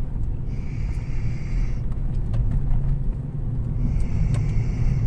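Car cabin noise on the move: a steady low rumble of engine and tyres on the road. A high buzzing comes and goes twice over it.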